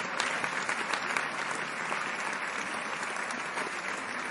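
Audience applauding: many people clapping at once, a dense steady patter of overlapping claps that holds an even level.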